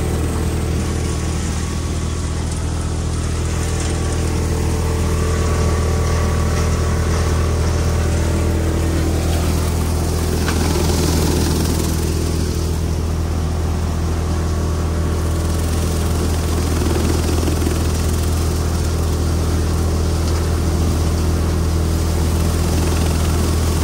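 Tractor-driven crop thresher running steadily under load while threshing moong plants: a continuous heavy mechanical drone from the tractor engine and the thresher drum, with a constant rushing hiss of crop going through.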